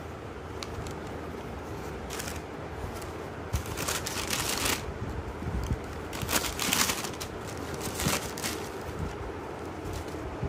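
Tissue paper rustling and crinkling in several short bursts as it is folded back and a shoe is lifted out, over a steady low background noise.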